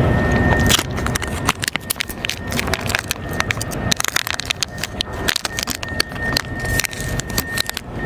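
Dry cat food clattering and crunching: a dense, irregular run of small clicks and rattles that starts about a second in and stops just before the end.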